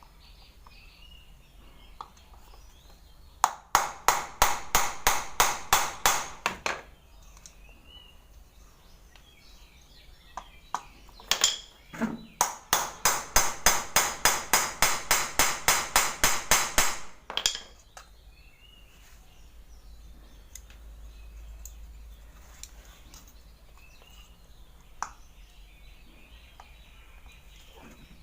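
Hammer striking a Pulsar motorcycle's clutch housing on a flat support, in two runs of quick taps at about four a second with a few single knocks between them. The part is being tightened up to cure the clutch-cover rattle.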